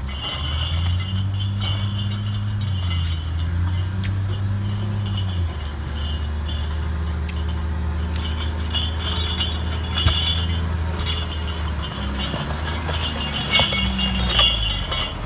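Log Champ LC550 swing yarder's diesel engine running steadily under load as it yards a log on the skyline with its grapple. The engine's pitch steps down about five seconds in. There is a sharp clink about ten seconds in and a few more near the end.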